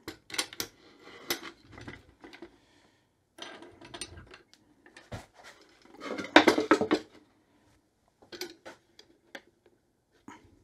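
Metal corner picture-frame clamps clicking and rattling as they are fitted and adjusted on plywood boards, with knocks from the boards being handled. The loudest clatter comes about six seconds in, as a board is laid across the top.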